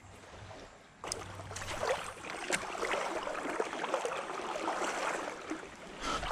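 Legs wading through shallow creek water, sloshing and splashing. It starts abruptly about a second in and goes on unevenly.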